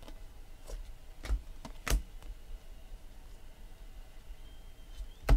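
Stiff chromium Panini Prizm cards clicking against each other as they are sorted by hand: a few separate sharp clicks, the loudest about two seconds in and another just before the end.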